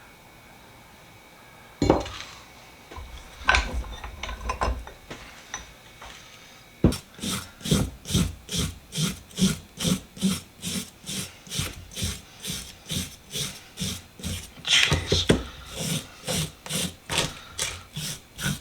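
A few knocks on metal, then a hand tool scraping back and forth on the rusty vise in steady strokes, about two a second.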